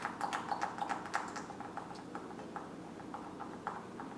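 Small, irregular clicks and taps from handling a liquid foundation bottle, close together for the first two seconds and then more spaced out.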